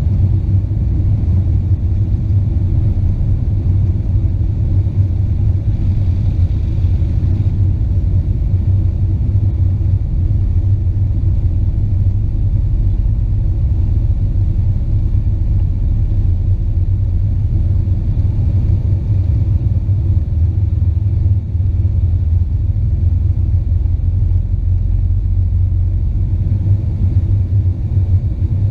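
Steady low rumble in the cabin of an Avro RJ85 airliner, the noise of its four turbofan engines and the airframe.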